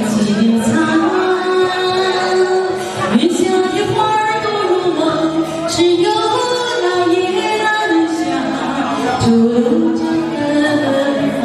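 Music with a voice singing a melody, long held notes that slide up and down in pitch.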